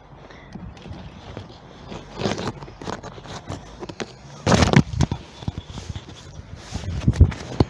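Waterproof jacket and gear rustling and knocking right against the microphone as the angler moves close to it, a run of irregular scuffs and clicks with the loudest scrape about halfway through.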